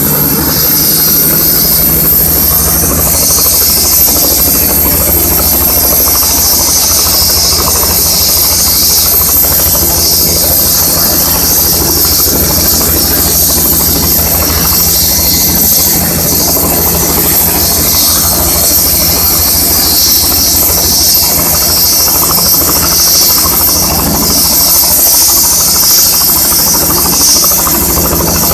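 Medical helicopter running on the helipad with its rotor turning: a fast, steady beat of the rotor blades under a high, steady turbine whine and hiss.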